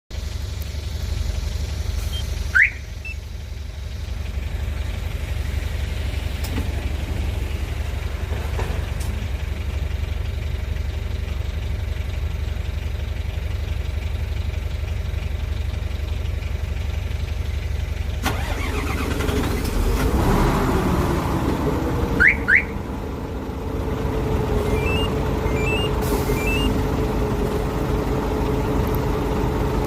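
Hyundai Xcient truck's diesel engine running, with an aftermarket truck alarm giving short rising chirps: once near the start and twice about 22 seconds in, with a few small beeps just after. About 18 to 20 seconds in the engine sound grows and changes, as a remote start would sound, and settles into a steady note.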